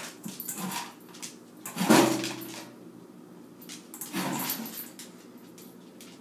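A dog pawing and nosing at a stainless steel food bowl of kibble: the metal bowl clanks and scrapes on the floor and kibble rattles. The loudest clank comes about two seconds in, and a smaller one comes about four seconds in.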